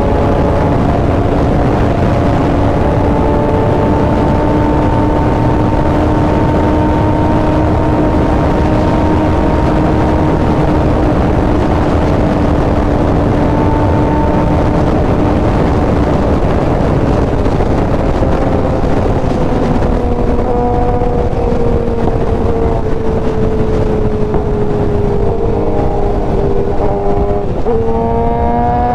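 Sport motorcycle engine running at a steady highway cruise under heavy wind rush. Its note sags slowly over the last ten seconds, then jumps sharply back up near the end as the throttle is opened or a gear changes.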